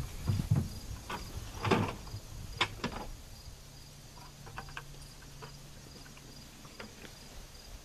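Insects chirping in a steady, even rhythm, with a few knocks and rustles in the first three seconds. A low steady hum joins about halfway through.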